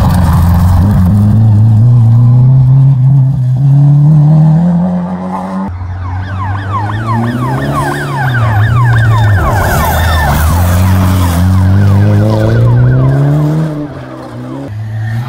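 Rally car engines at full throttle on a gravel stage, several cars in succession. First a classic Opel rally car's engine climbs steadily in pitch as the car slides through a corner. After a cut, another car's engine revs up and down through gear changes, with tyres sliding on the loose gravel.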